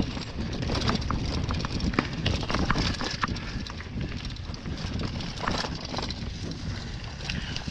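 Hardtail mountain bike rolling fast down a rocky dirt trail: tyres over stones and roots, with frequent sharp clacks and rattles from the bike, over a steady low rumble of wind on the microphone.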